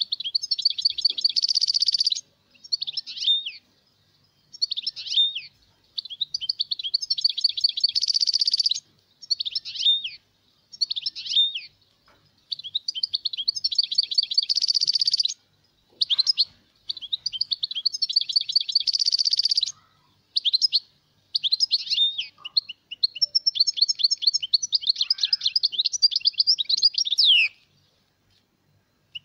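European goldfinch singing: repeated phrases of rapid, high twittering trills and buzzy notes, each one to three seconds long with short pauses between, and a longer run near the end. It is a tutor song of the kind played to teach young goldfinches.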